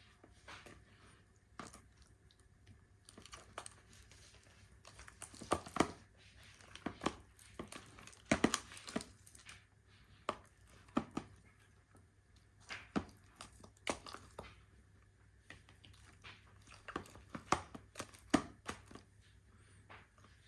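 Glitter-glue slime being stirred and handled, giving irregular short clicks scattered through the stretch with quiet gaps between them.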